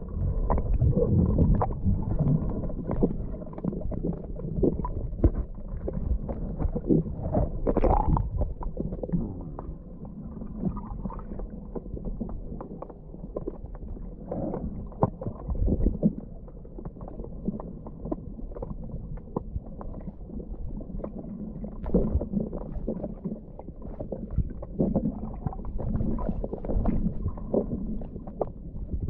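Muffled underwater sound picked up by the camera's microphone while snorkelling: a low rumble of moving water with many small scattered clicks and crackles. It is louder for the first several seconds, then settles lower.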